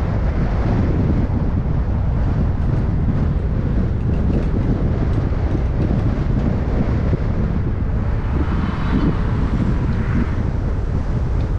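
Steady wind noise on the microphone over the low rumble of a car driving slowly along a town street.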